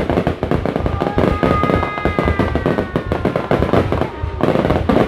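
Fireworks going off in a dense, rapid crackle of bangs. In the middle a faint whistle glides slowly downward through the crackle.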